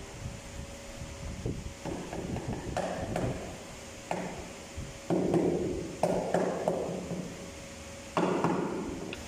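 Hammer-type knocks on a ceramic floor tile as it is tapped down during laying. Faint taps come first, then five louder strikes from about four seconds in, each dying away briefly.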